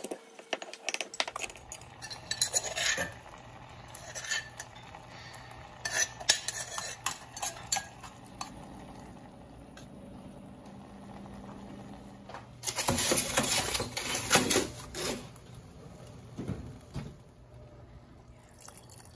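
Pestle knocking in a clay mortar at first, then a metal spoon stirring and clinking against a stainless steel saucepan of chunky, watery sauce, with a louder run of rapid scraping and clinking about 13 seconds in.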